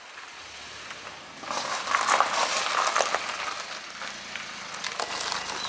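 A van rolling in slowly over a gravel lot: a low engine hum under the crunch and crackle of tyres on loose gravel, loudest between about one and a half and three and a half seconds in, then settling as it stops.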